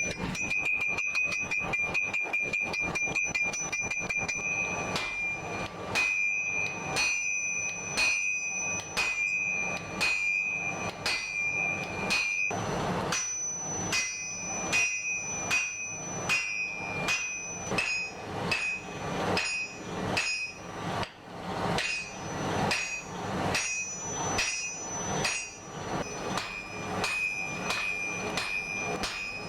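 Hammer blows on hot axe steel over an anvil, each strike ringing: a quick flurry of light blows at first, then steady strikes about two a second, with a short break about halfway.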